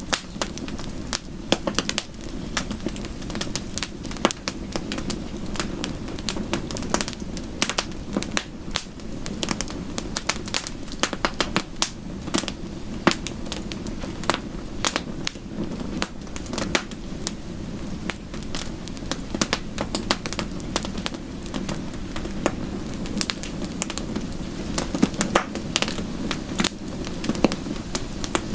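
Wood fire in a fireplace crackling, with many quick, irregular snaps and pops over a steady low rushing background.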